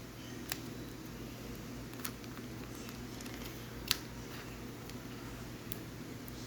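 A few light clicks and taps from a card album being handled by hand, four or five spread over a steady low hum.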